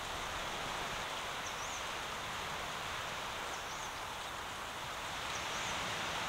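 Steady outdoor background hiss, with a faint short high bird chirp three times, about two seconds apart.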